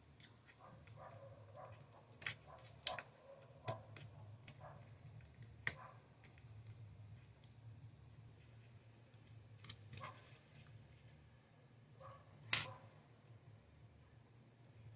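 Small screwdriver and tiny screws clicking and tapping against the plastic toolhead housing of a Bambu Lab A1 3D printer as it is taken apart: scattered sharp clicks, several fairly loud ones in the first six seconds and one more near the end, over a faint low hum.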